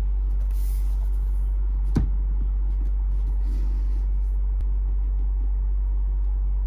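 Steady low hum throughout, with a single sharp click about two seconds in.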